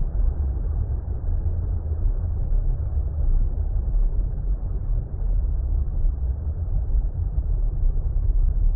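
Steady, deep underwater water rumble: a muffled, dull noise with most of its weight in the low bass and nothing bright above it, unchanging throughout.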